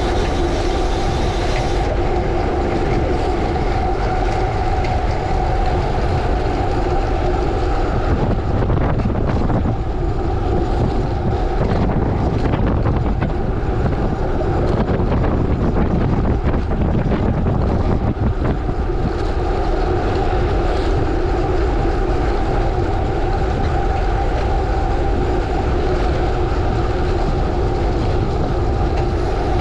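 Bicycle tyres rolling on a gravel road with the bike rattling and wind on the microphone, a steady loud rumble. The clatter gets rougher for a stretch in the middle.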